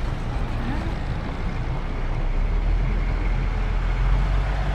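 Street traffic sound: a vehicle running with a steady low rumble.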